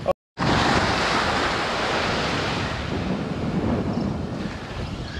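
Wind buffeting the microphone over the wash of small surf breaking on a sand beach. The sound drops out for a moment just after the start, then returns at its loudest and eases slightly.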